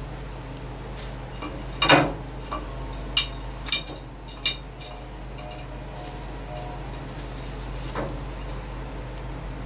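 A young crow's beak pecking at something hard, making sharp clinking taps: four between about two and four and a half seconds in, the first loudest, and a fainter one near the end.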